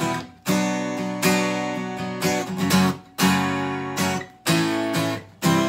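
Takamine acoustic guitar strummed in a rhythmic chord pattern, each chord ringing on and cut short by brief stops, about half a second in and again about four seconds in.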